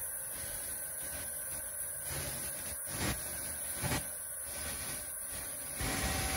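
Haas UMC-1000SS five-axis CNC machining center running under power, a steady mechanical hiss with a high, constant whine. There are two short knocks about three and four seconds in, and the sound gets louder near the end.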